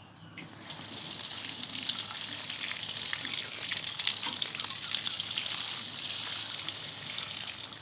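Water pouring from a watering can, splashing onto soil and dry leaf litter. The steady gushing sets in about half a second in and eases slightly near the end.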